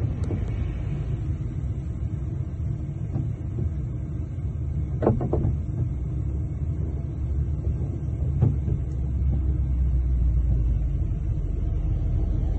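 Steady low rumble of a heavy truck's engine and road noise heard inside the cab, with a short knock about five seconds in and another about eight and a half seconds in.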